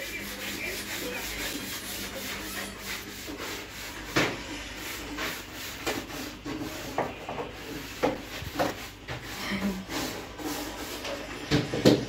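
Continuous rubbing and scraping with irregular sharp clicks, louder and more frequent toward the end: pet birds moving about on the metal wire of a cage.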